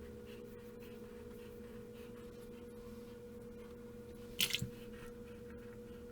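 Faint steady low hum with a few light ticks, and a short scrape ending in a soft knock about four and a half seconds in.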